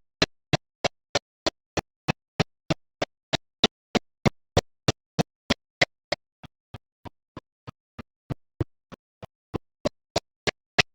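A steady series of sharp, evenly spaced clicks, about three a second, with silence between them. The clicks drop much quieter for a few seconds past the middle, then come back at full strength near the end.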